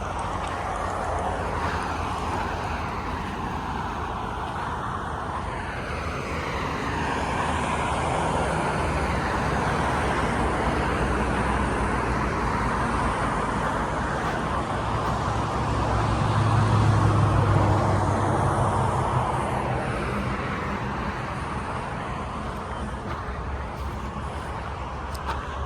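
Road traffic passing continuously, a steady noise that swells and fades as cars go by. A heavier vehicle's low engine drone rises to the loudest point about two-thirds of the way through, then fades.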